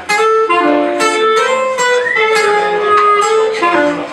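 Clarinet playing a sustained melody over acoustic guitar chords, live instrumental music.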